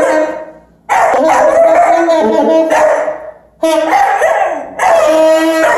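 A dog howling along with a saxophone being played. There are two long phrases of held sax notes with the dog's wavering howl over them: one starting about a second in and one starting a little past the middle, with a brief pause between them.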